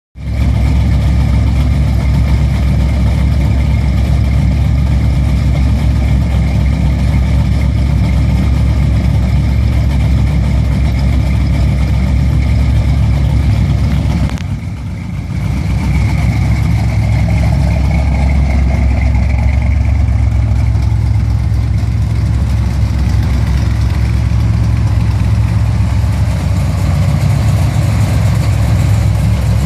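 Big-block Chevrolet V8 engines, a 468 and a 472 cubic inch, idling steadily through their exhausts, with a brief dip in level about halfway through.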